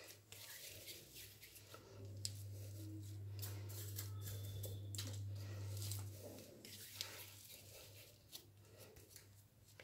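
Faint rustling and small clicks of hands pressing pieces of warm jaggery-sesame mixture flat and coating them in sesame seeds in a steel bowl, with a plastic sheet crinkling. A low steady hum runs through the middle few seconds.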